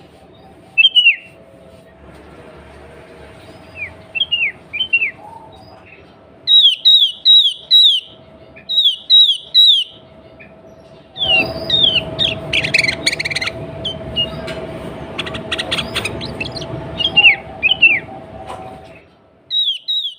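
Sooty-headed bulbul calling: quick runs of short, falling whistled notes. In the second half the calling grows denser, with harsh chattering over a faint steady hum.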